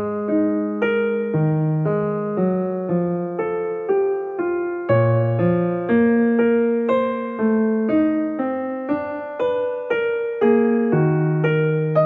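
Solo piano music in a gentle sonata style: a melody over bass notes, a note struck about every half second, each fading away.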